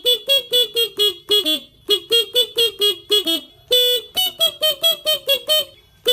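Motorcycle telolet horn playing a fast tune of short honked notes, about four a second, in phrases with brief breaks and one longer held note near the middle.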